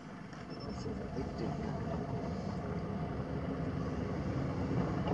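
Vehicle engine idling, a steady low rumble that grows gradually louder.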